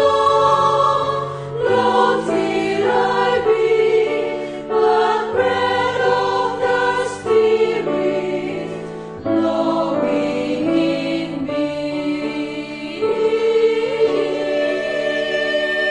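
A choir singing a hymn in several parts, holding chords that change about every second.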